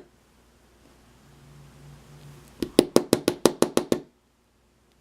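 A lock being rapped sharply against a hard surface in a quick run of about nine knocks lasting just over a second, to shake the loose key pins out of its emptied pin chambers.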